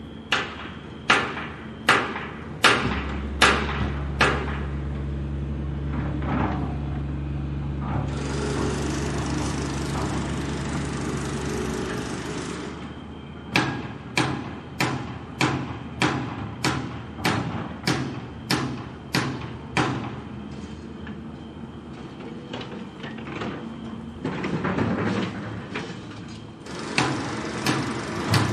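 Construction site sounds: two runs of evenly paced hammer blows, the first at about one a second, the later one faster. Between them a machine hums steadily for several seconds, with a few seconds of hissing noise over it.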